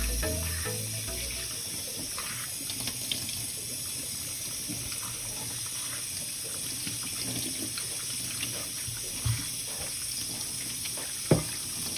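Kitchen tap running into a stainless steel sink, the water splashing over tomatoes and chilli peppers in a metal colander as hands rinse them. Two short knocks come near the end.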